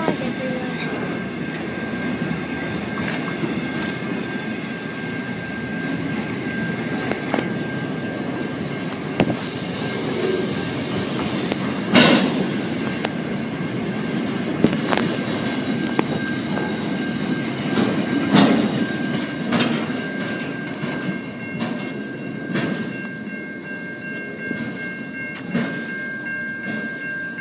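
Freight train wagons rolling past: a steady rumble with the clatter of wheels over rail joints, broken by sharp clanks, the loudest about twelve and eighteen seconds in. A thin, steady high tone runs underneath.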